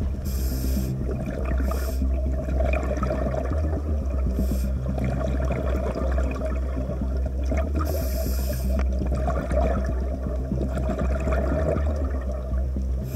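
Underwater recording of a scuba diver breathing through a regulator: a hiss on each inhale comes a handful of times, and the exhaled bubbles make a constant rumbling gurgle.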